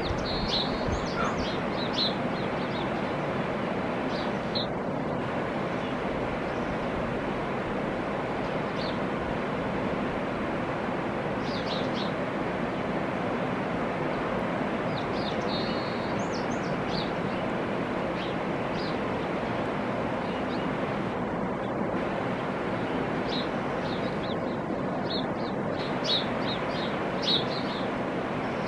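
Steady rush of a fast-flowing river running over rocks. Small birds give short high chirps in clusters near the start, around the middle and near the end.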